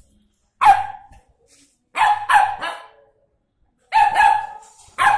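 Pit bull puppy barking in short, sharp barks: one, then a quick run of three, then two more, and another right at the end.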